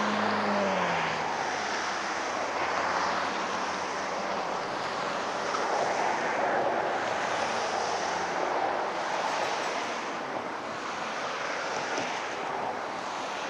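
Long double-stack freight train rolling downgrade, a steady rushing of steel wheels on rail that swells and eases slowly, with a low tone gliding down about a second in.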